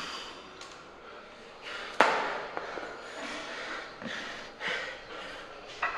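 Gym sounds: a single sharp metal clank with a short ring about two seconds in, and short, sharp breaths several times as a lifter readies himself at the barbell.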